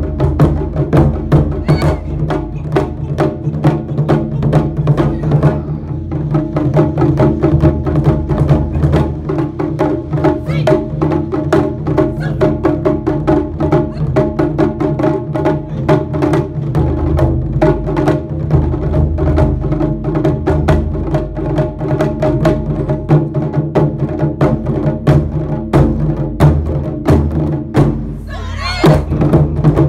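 Taiko ensemble of nagado-daiko barrel drums struck with wooden bachi sticks by several players at once: a dense, fast rhythm of strikes.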